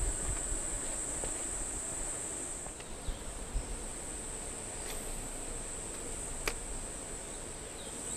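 Steady high-pitched drone of insects in the bush, unbroken throughout, with a few faint sharp clicks.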